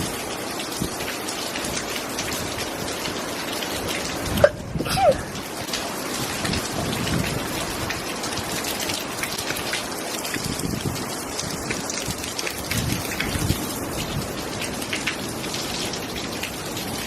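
Heavy rain pouring steadily. A brief knock and short squeak about four and a half seconds in.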